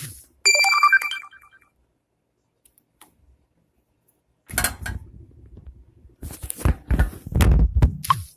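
Sticky slime being squished and worked by hand close to the microphone, with loud rustling and dull thumps from about four and a half seconds in. Near the start there is a brief high ringing tone.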